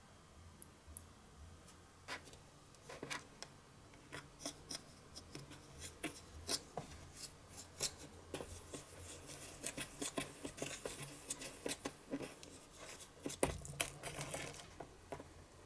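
Irregular small clicks, snips and scrapes of hands working a Konapun powdered-candy kit and its small plastic tools, coming in quick runs from about two seconds in.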